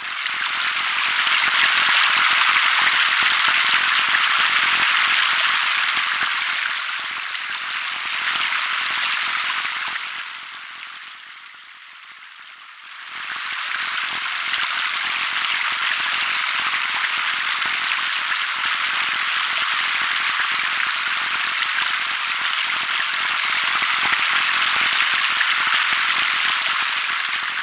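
Steady hiss of splashing water from pool bubbler jets falling onto the water surface. It fades down about ten seconds in and comes back up about three seconds later.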